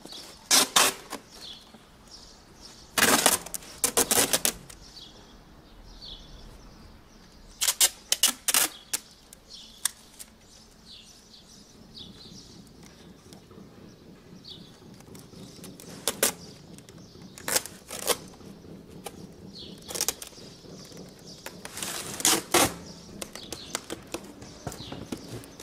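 Adhesive tape pulled off the roll in short, loud crackling bursts, repeatedly, while it is laid along the ramp as reinforcement. Birds chirp faintly throughout.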